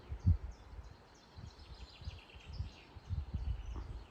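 A small bird singing a run of short high chirps, about three a second, over low rumbling wind buffeting on the microphone, with a stronger gust about a third of a second in.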